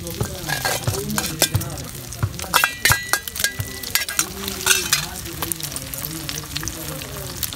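Beaten eggs for an omelette sizzling and crackling in hot oil on a flat iron tawa. Sharp metallic clinks against the pan come in a cluster about two and a half to three and a half seconds in, and once more near five seconds.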